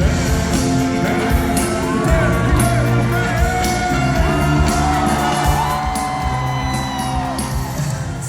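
Live pop-rock band playing with a steady drum beat, while voices hold long sung notes that slide between pitches.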